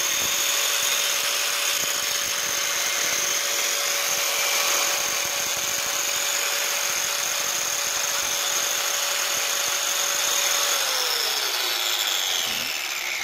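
A 710 W handheld angle grinder with a cutting disc runs free at full speed on power from a 2000 W inverter, a steady high whine. About eleven seconds in it is switched off and the whine falls in pitch as the disc spins down.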